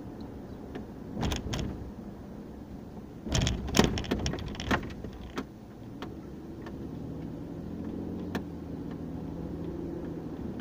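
Car driving, heard from inside the cabin: steady road and engine noise. A few knocks come about a second in, and a louder cluster of knocks and rattles between about three and five seconds. A steadier low hum settles in for the second half.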